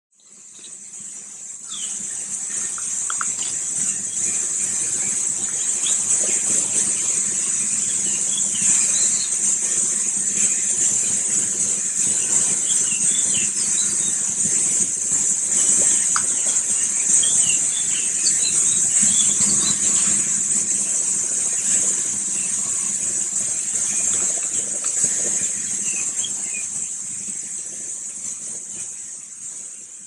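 A steady, high-pitched insect chorus that fades in and, near the end, fades out, with faint short chirps scattered through it.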